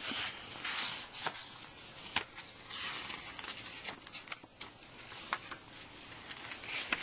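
Soft rustling and handling noise, with a few light clicks scattered through it.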